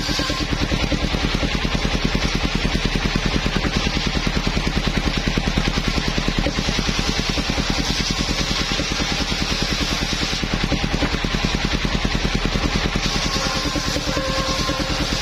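Engine-driven mobile circular sawmill running steadily with a fast, even pulsing engine beat while its blade saws a teak log. A brighter, hissing cutting noise swells in two stretches, around the middle and near the end.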